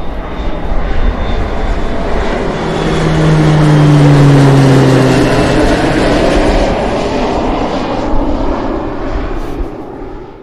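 Airplane engines: a loud rush swells to a peak about four seconds in, with a falling tone as it passes its loudest, then eases off and fades out.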